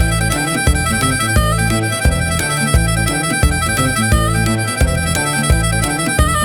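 Instrumental blues music: a sustained, reedy blues harmonica melody over a steady low beat pulsing about every 0.7 seconds.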